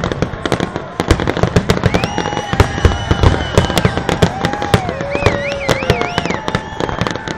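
Aerial fireworks display: a rapid, unbroken barrage of bangs and crackles, with several whistles gliding up and down in pitch over it.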